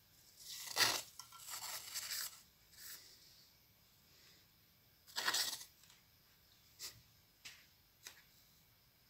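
Scissors cutting into a rubber balloon: rough, tearing cuts in the first couple of seconds and again about five seconds in, then three light clicks of the blades.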